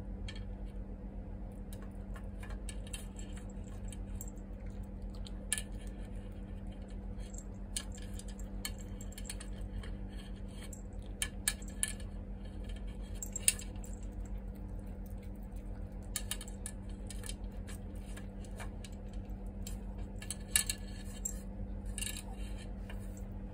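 A small dog eating from a plastic plate on a tile floor: scattered licking and chewing clicks, with a few louder knocks of the plate against the floor. A steady hum runs underneath.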